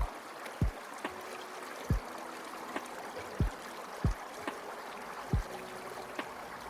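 Steady rush of a flowing water stream under a soft background music track with a deep kick-drum beat, which is the loudest sound, and faint held notes.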